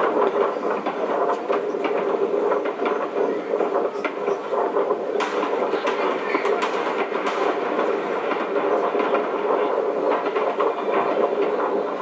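Fireworks going off in a continuous rapid series of crackles and pops.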